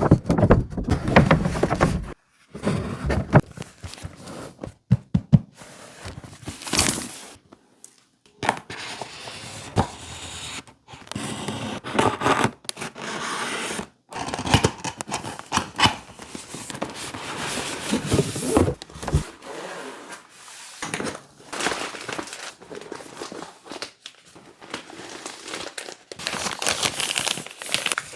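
Packaging of a DJI Air 3 drone being unboxed: paper and plastic tearing, crinkling and scraping, with short knocks of box parts being set down, in a run of bursts broken by brief pauses.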